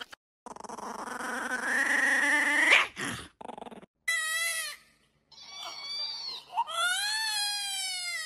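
A dog whining and whimpering: a rising whine over the first few seconds, then several high, wavering cries after short gaps.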